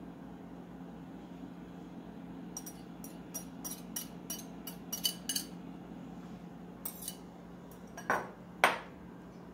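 A utensil clinks against a glass mixing bowl in a quick series of sharp taps as the last of the egg mixture is scraped out into the mould, followed by two louder knocks near the end, the second the loudest. A steady low hum runs underneath.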